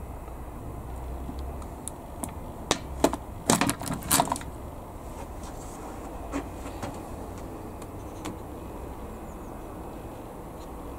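Small hard parts clicking and knocking as they are handled: a cluster of sharp clicks between about two and four and a half seconds in, then a few fainter ones, over a low steady hum.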